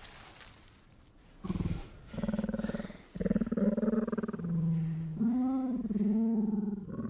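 The Zouwu, a giant cat-like film creature, makes a run of low cat-like growling calls, some arching up and down in pitch. A high bell-like ring fades out in the first second.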